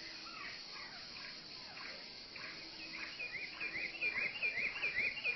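Slowed-down forest-animal chattering sound effect: overlapping bird-like calls that glide up and down in pitch, turning about halfway into a quick repeating series of chirps, about three a second, over a steady high hiss.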